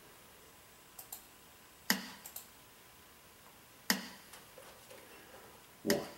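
Metronome count-in clicks from a play-along backing track: three sharp, evenly spaced clicks about two seconds apart. A pair of faint small clicks, like a computer mouse, come about a second in.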